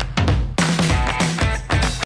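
Background music with a steady drum beat and guitar, cutting off abruptly at the end.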